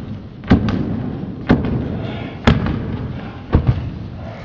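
Heavy footsteps stomping on a hard hallway floor, about one loud thud a second, each echoing off the walls.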